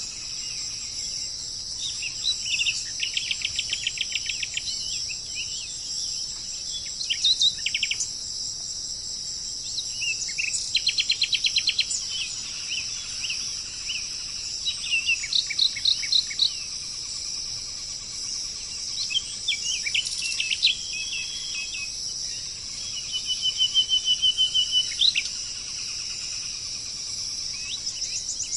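Bird calls in bursts every few seconds: fast chattering trills and short chirps, over a steady high-pitched drone of insects.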